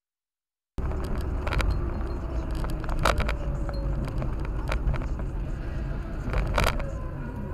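Silent for under a second, then the steady low road and engine rumble of a car driving at speed, picked up by its dashcam inside the cabin, with several sharp clicks or rattles scattered through it.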